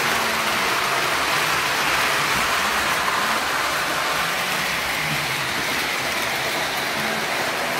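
O scale model train running on its track: a steady rolling rush of wheels on rail with a faint, wavering motor hum underneath.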